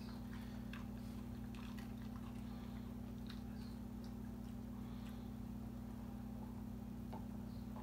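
Faint, scattered clicks and light crunches of a dog nosing and nibbling at a hard dog biscuit, over a steady low hum.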